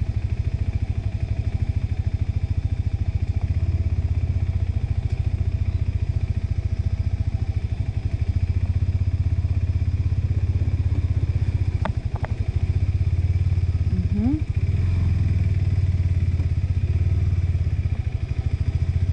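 KTM 390 Adventure's single-cylinder engine running steadily as the motorcycle rides through slippery mud. Two sharp knocks come about twelve seconds in.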